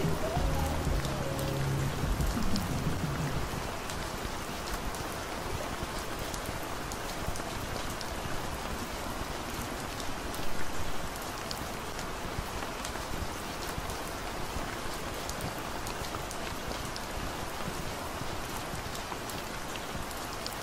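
Steady rain falling, with scattered drops ticking. The last notes of soft music die away in the first few seconds, and there is a brief louder swell of the rain about ten seconds in.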